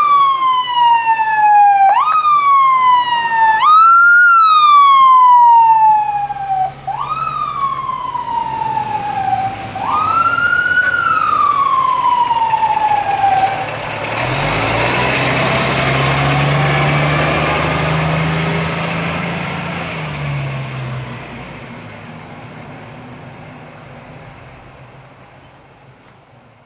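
Fire truck siren in five short wind-ups, each rising quickly to a high pitch and then falling away over a couple of seconds; the last dies out about halfway through. Then the truck's diesel engine pulling away is the main sound, loud for several seconds and fading into the distance near the end.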